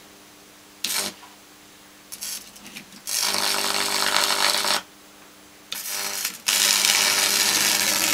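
Microwave oven transformer's high-voltage output arcing across a worn fuel-sender resistor board, burning its traces off and setting its plastic alight: a short crackle about a second in, then two loud buzzing arcs of about a second and a half each. A steady mains hum runs underneath.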